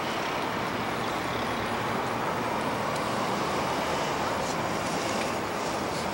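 Boeing 737-800's CFM56-7B jet engines running steadily at low thrust, an even rushing noise with no rise in pitch or level, as the airliner rolls slowly along the runway.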